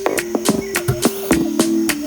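Electronic instrumental music: a steady, crisp percussion beat over a low held synth tone.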